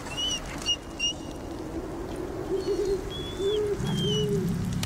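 Husky-type sled dogs whimpering and whining in a string of short, high cries, with a low growl starting about four seconds in.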